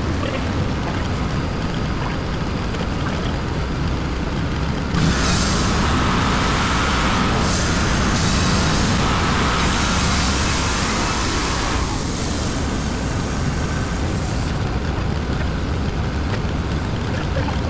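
Gas engine of a Wood-Mizer LT35 band sawmill running steadily. It gets louder and brighter from about five seconds in until about twelve seconds in, as the band blade cuts through the hemlock log.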